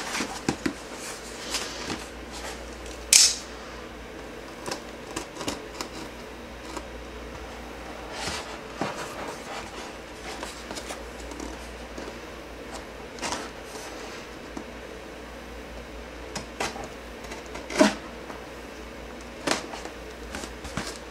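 Cardboard mailing box being handled, turned over and slit open along its taped flap with a knife blade: scattered taps, rustles and scrapes, with a sharp click about three seconds in.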